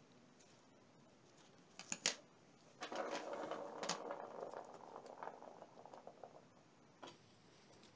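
Handling noise from a plastic protractor and two steel hex nuts: a few sharp clicks about two seconds in, then several seconds of rustling and scraping as gloved fingers slide the nuts around on the plastic, with one more click partway through.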